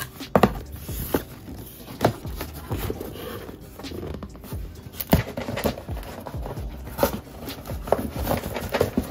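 CADA plastic building bricks clicking and scraping as they are handled and fitted together, in irregular sharp clicks about once a second, over quiet background music.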